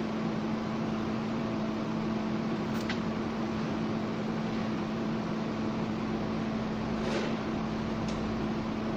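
TIG welding arc on a 10-inch SUS 304 stainless steel pipe: a steady hiss with a low, constant hum and a few faint clicks.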